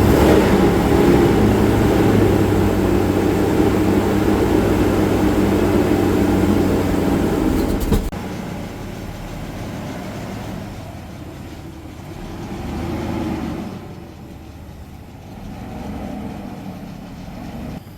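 2000 Chevy Blazer ZR2's 4.3-litre V6 running steadily, loud for about eight seconds, then suddenly quieter, with two gentle swells in engine sound later on.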